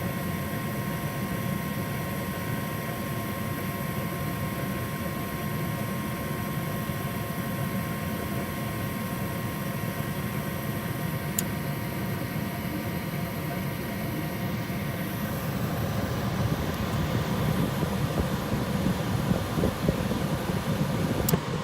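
Small gas furnace running with its burner lit and blower fan on: a steady low rumble and rush of air with a faint steady hum on top. About two-thirds of the way in it grows louder and rougher, and there is a sharp click near the middle and two more near the end.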